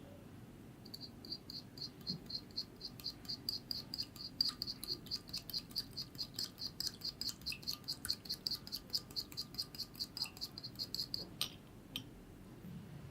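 A utensil stirring briskly in a small bowl, clinking against it about five times a second so that the bowl rings with the same high tone on each stroke. It starts just after a second in and stops about eleven seconds in.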